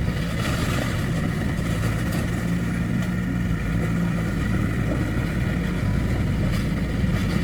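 Heavy diesel engine of earthmoving machinery running steadily with a low hum.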